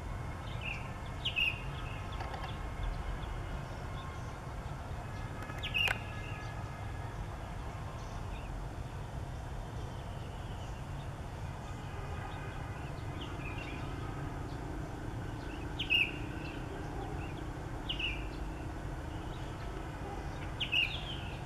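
Sooty-headed bulbul giving short call notes every few seconds, irregularly spaced, over a steady low background rumble.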